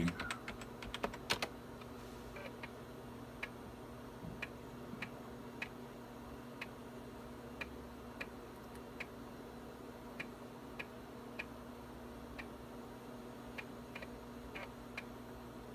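A few quick computer keyboard keystrokes at the start as the setup command is entered. Then a floppy drive ticks irregularly, about one or two ticks a second, as it reads the Windows for Workgroups 3.11 setup disk, over a steady low hum.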